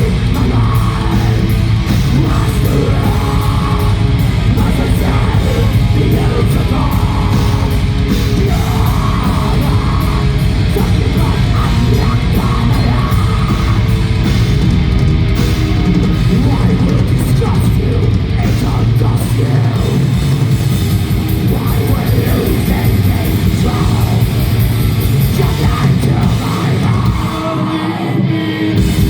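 Black metal band playing live: distorted guitars, bass and rapid drumming under harsh yelled vocals. The fast low kick-drum pattern drops out about two-thirds of the way through.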